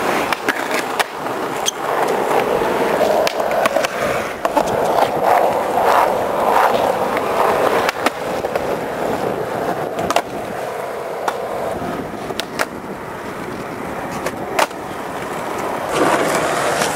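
Skateboard wheels rolling on concrete, with sharp clacks here and there as boards pop, land and hit concrete ledges, one of them a truck grind on a ledge about halfway through.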